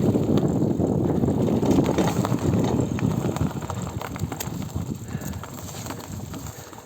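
GT Avalanche Elite mountain bike rolling along a trail: a low rumble and rattle of tyres and frame that fades steadily as the bike slows, with scattered sharp clicks in the second half.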